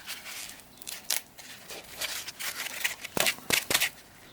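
Box packaging being handled while a key is worked out of it: scratchy rustling and scraping, with three sharp clicks a little after three seconds in.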